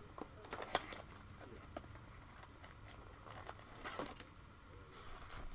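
Hands opening a Panini Prizm football blaster box and handling its foil card packs: scattered crinkles, taps and rustles of cardboard and plastic wrap.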